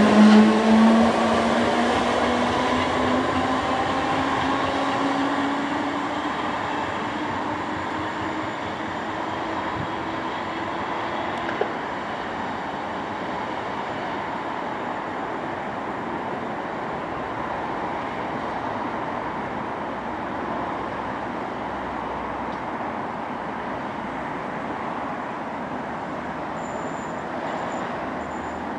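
Merseyrail electric multiple unit pulling away: the traction motor whine rises steadily in pitch for about ten seconds. It then fades out, leaving the rumble of the wheels on the rails, which grows quieter as the train draws away.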